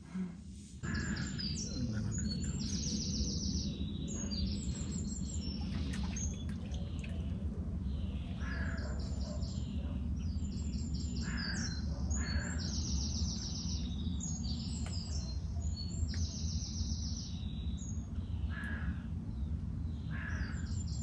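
Wild birds calling: rapid series of high chirps and lower calls every few seconds over a steady low rumble, starting about a second in.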